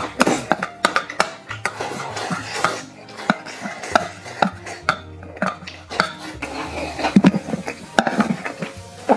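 Wooden chopsticks clicking and scraping against a stainless steel bowl as food is shoveled from the rim into the mouth, in many quick irregular knocks, with eating sounds in between.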